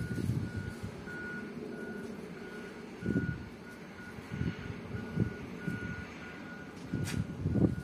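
A vehicle's reversing alarm beeps a single high tone at an even, repeating rhythm, with low rumbling and a few thumps underneath.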